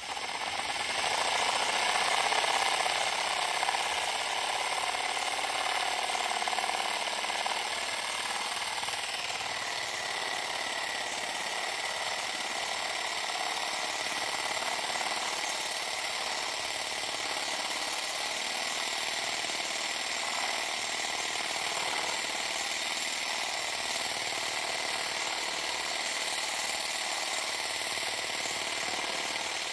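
A power tool's bit grinding out the grout between ceramic tiles: a steady, harsh grinding hiss that starts suddenly and runs on evenly, slightly heavier over the first several seconds.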